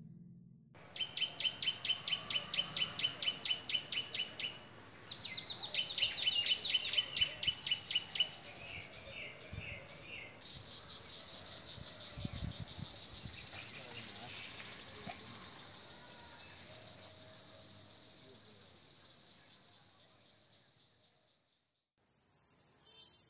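A bird calling in two runs of quick, evenly spaced chirps, about four a second. About ten seconds in, a loud, steady high insect buzz starts, slowly fades and stops short near the end, followed by a fainter pulsing buzz.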